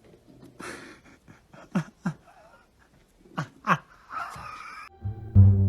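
A dog giving short, sharp yelps that fall in pitch, in two pairs about a second and a half apart, with a breathy huff after them. Plucked-string music comes in near the end.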